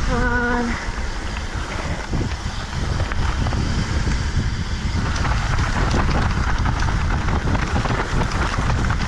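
Mountain bike riding down a trail: wind buffets the microphone over the rolling and rattling of the bike. A short held tone sounds right at the start, and the trail noise grows rougher about halfway through.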